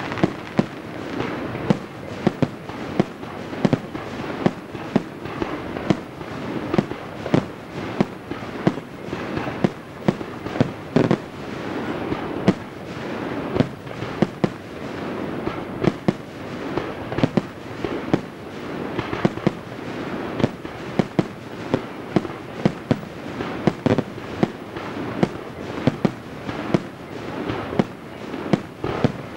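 Aerial firework shells bursting in quick succession, about two sharp bangs a second, with steady noise filling the gaps between them.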